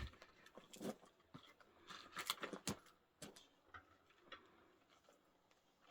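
An axe blow striking a firewood log, one sharp knock right at the start, with the axe not biting in. Several fainter knocks and rustles follow, bunched about two to three seconds in.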